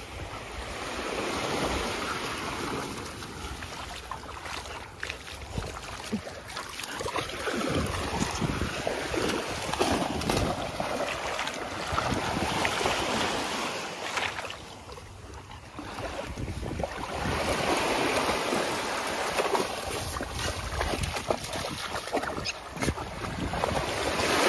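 Wind buffeting the microphone over small waves washing on the shore, with the splashing of a golden retriever puppy wading through the shallows. The wind noise swells and fades, dropping off briefly a little past the middle.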